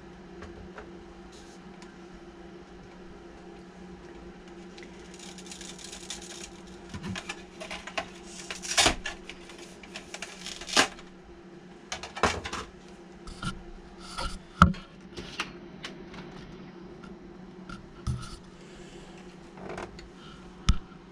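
Hard plastic RC car body and chassis being handled and set down on a work table: scattered rubbing and clicking with a handful of sharp knocks, over a steady low hum.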